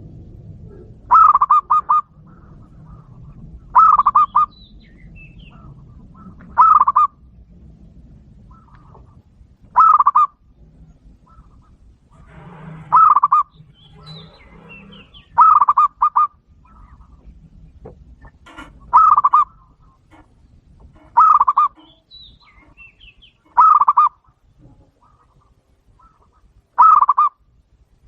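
Captive doves calling: a short, loud call of a few quick pulses, repeated about every two to three seconds. Faint chirps sound in between.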